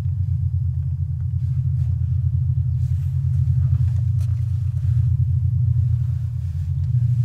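A vehicle's engine idling: a steady low rumble with a fast, even throb.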